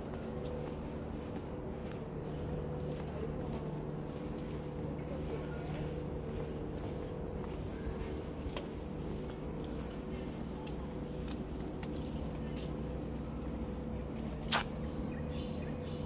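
Steady high-pitched chorus of forest insects, with faint ticks of footsteps on the wooden boardwalk and one sharp click about fourteen and a half seconds in.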